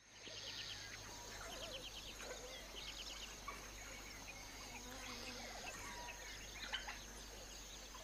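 African bush ambience: several birds calling with short chirps and trills over a steady high-pitched insect drone, with a faint low hum beneath.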